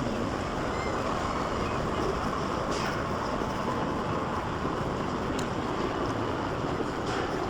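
Steady outdoor background noise with no clear single source, broken by a few faint clicks.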